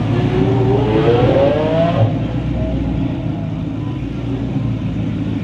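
Koenigsegg Regera's twin-turbocharged 5.0-litre V8 revving, its pitch rising for about two seconds and then cutting off suddenly as the throttle closes. A steady low engine rumble follows as the car rolls on at low speed.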